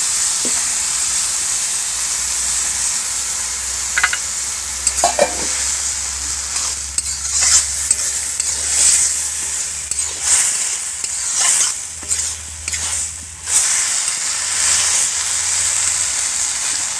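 Moong dal, soybeans and spices sizzling in hot oil in a black iron kadai while a metal spatula stirs and scrapes through them, with a run of scraping strokes about a second apart in the middle.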